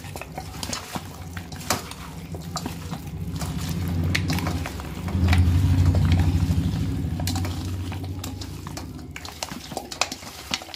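Raw mutton being mixed by hand with spice paste in a steel bowl: wet squelching and scattered clicks of meat and fingers against the metal. Under it runs a low hum that swells to its loudest about halfway through, then fades.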